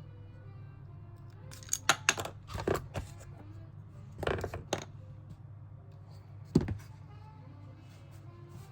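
Sharp clicks and clatter of small hard parts being handled, in a few short groups with one loudest click later on, over soft background music and a steady low hum.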